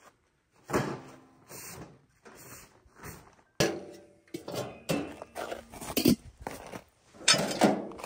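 Irregular knocks and clunks of objects being handled, a few of them followed by a brief ring.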